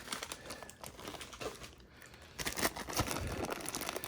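Plastic packaging crinkling and rustling as it is handled, with small scattered clicks and taps. The rustling fades about a second and a half in, then picks up again and grows denser.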